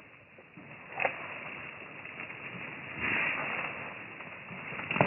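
Footsteps and brush rustling as a person climbs down through dead branches and twigs, with a sharp snap about a second in, a louder scuffle around three seconds, and another sharp snap near the end.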